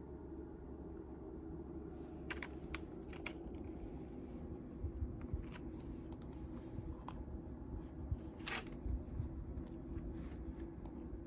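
Keys of a Dell computer keyboard clacking as a cat's paws step across it: about a dozen scattered, irregular clicks starting about two seconds in, over a low steady hum.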